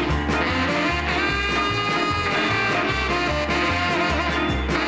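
Upbeat swing-style background music with a walking bass line and a steady beat.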